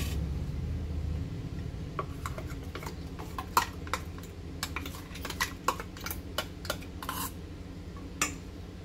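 A metal spoon scrapes and clinks against a steel mixer-grinder jar and a stainless steel bowl while thick ground chana dal paste is scooped from the jar into the bowl. The sound is a loose string of short scrapes and clinks, thickest in the middle and ending with one last clink near the end.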